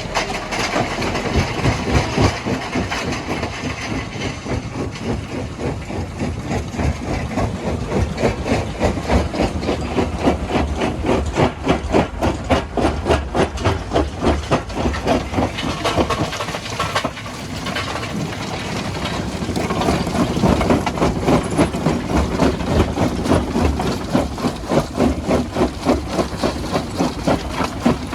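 Jaw crusher running, rocks being crushed in it, with a steady pulsing beat of about three strokes a second and a short lull in the middle.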